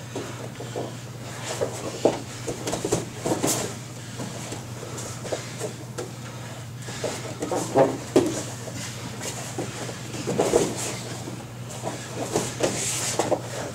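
Two grapplers rolling no-gi on foam mats: irregular thumps, slaps and scuffs of bodies and limbs shifting on the mat, with a few sharper thumps, over a steady low hum.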